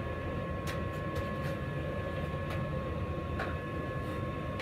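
Steady workshop hum with two faint steady tones, with a few faint scattered clicks.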